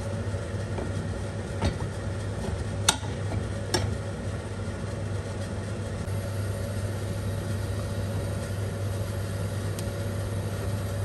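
A steady low machine hum, with a faint sizzle from butter melting in oil in a pot. Three light taps in the first four seconds, and a faint one near the end, come from a silicone spatula touching the pot.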